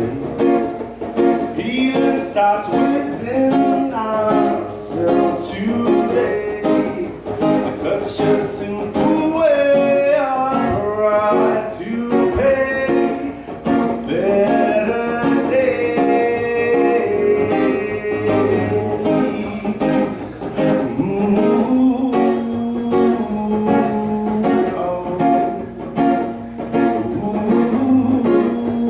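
Live band music: acoustic guitar strumming under a melody line, an instrumental stretch of the song without transcribed lyrics.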